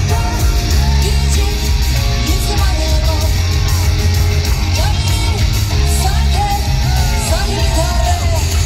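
Live pop music played loud: a heavy bass beat under a woman's voice singing into a microphone in short, rising-and-falling phrases.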